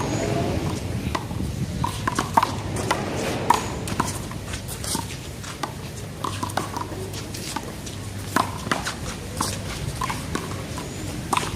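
Rally in a one-wall handball game: the small rubber ball smacked by players' hands and bouncing off the wall and court, a string of sharp, irregularly spaced slaps about one or two a second, over a steady low background rumble.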